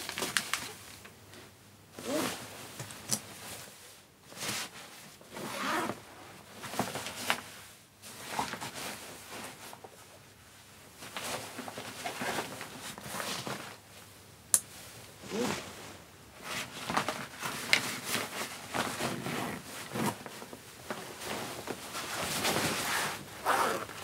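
Handling a polyester trekking rucksack: fabric rustling, a zip being worked and nylon straps sliding, in irregular bursts. There is one sharp click about halfway through, and a longer sliding sound near the end as a shoulder strap is pulled tight.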